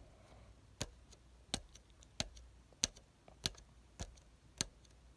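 Faint, sharp clicks repeating at a steady pace, about three every two seconds.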